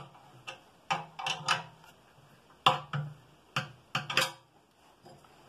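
About eight or nine sharp metallic clicks and clinks, each ringing briefly, from hand work on the bolts of an electric motor's sliding mount. They come in quick bunches and stop a second before the end.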